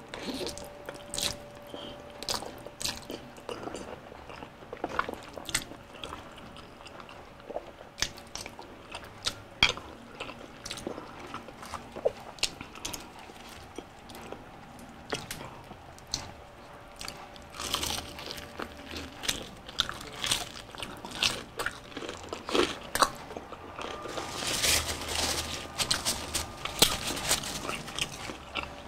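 Close-miked eating: wet chewing and mouth clicks from a mouthful of palabok noodles, then bites and crunches into the crispy breading of fried chicken, the crunching densest near the end.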